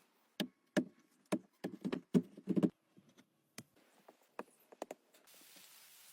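A quick, irregular run of sharp knocks and clicks, a few fainter ones after, then a steady hiss from about five seconds in.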